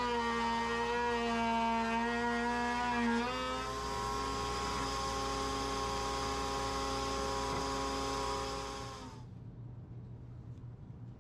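Router spinning a bit in a router table, a steady whine with many overtones while the edge of a hardwood end-grain cutting board is routed. About three seconds in the pitch shifts slightly as the board clears the bit and the router runs free. Its sound fades out about nine seconds in.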